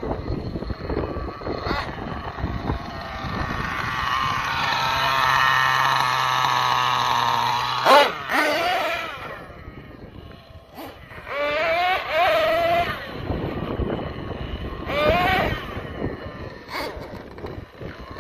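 Thunder Tiger Sledge Hammer S50 RC monster truck's small nitro engine revving in bursts, its pitch rising and falling, held at a high steady whine for several seconds in the middle. A sharp loud bang comes near the middle, and more rising revs follow.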